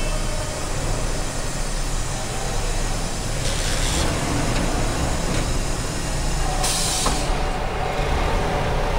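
CD70-type single-cylinder motorcycle running on a roller test bench, its rear wheel driving the rollers: a steady mechanical rumble. Two short hisses cut in, about three and a half and seven seconds in.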